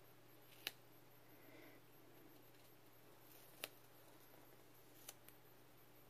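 Near silence with a few sharp little clicks as a paper sticker is pressed and smoothed onto a planner page: two clearer clicks about three seconds apart, then a fainter one near the end.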